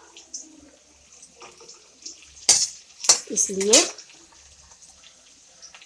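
Metal spoon scraping and knocking against a steel kadhai while stirring onions frying in oil, a few sharp strokes about two and a half to three seconds in.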